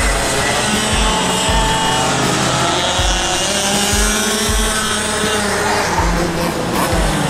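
Go-kart engine running, its pitch rising and falling as the kart laps, over background music with a regular kick-drum beat.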